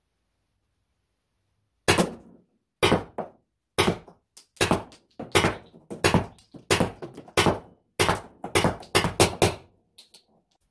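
PepperBall VKS launcher firing a string of shots, each a sharp crack-and-thunk as the ball strikes the cardboard box target. The shots start about two seconds in, come roughly one a second, then speed up to a quick burst before stopping about ten seconds in.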